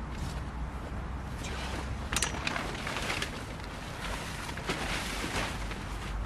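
Camping gear being handled during tent and tarp setup: irregular rustling with sharp clicks and knocks, the sharpest about two seconds in, over a steady low rumble.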